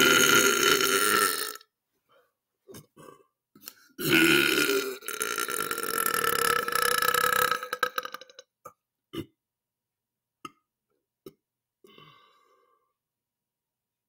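A man belching loudly twice: the first belch ends about a second and a half in, and the second, from about four seconds in, is drawn out for over four seconds. A few faint mouth clicks follow.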